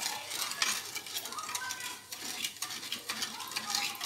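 A spatula stirring sugar and water in a metal pan, with repeated short scrapes and clicks against the pan as the sugar dissolves for a one-string syrup.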